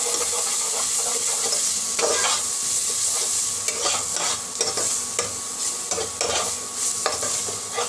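Spiced masala with garlic paste sizzling as it fries in a non-stick pot, while a metal spatula stirs and scrapes it in repeated strokes over a steady hiss.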